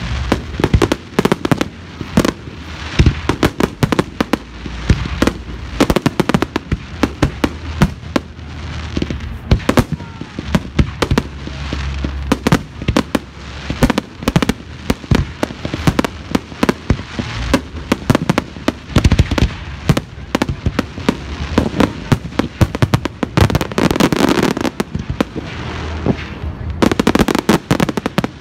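Fireworks display: aerial shells bursting in a rapid, unbroken barrage of loud bangs over a steady crackle.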